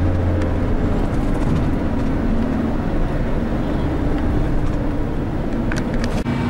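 Engine and road noise heard inside a moving shuttle bus's cabin: a steady low rumble, with a few sharp clicks near the end.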